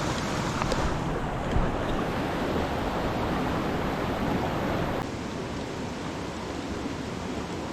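Rushing water of a mountain trout stream, a steady rush with a couple of light knocks in the first two seconds. About five seconds in it drops abruptly to a quieter, duller rush.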